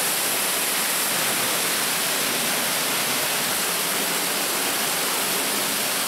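Steady rush of water flowing through an underground stream culvert, an even hiss with no breaks that cuts off suddenly at the end.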